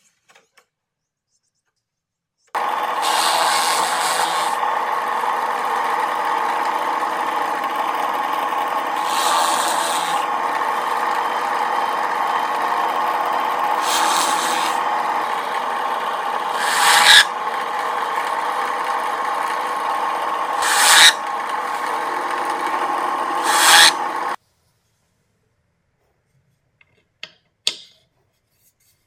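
Electric drill running as its bit bores into plywood, a steady motor whine with louder rasping surges as the bit cuts, the last three short and sharp; it stops suddenly about 24 seconds in, followed by a couple of small clicks near the end.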